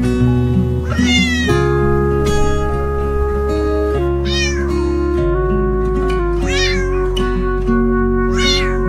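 A cat meowing four times, short downward-bending calls, over background music with long held notes.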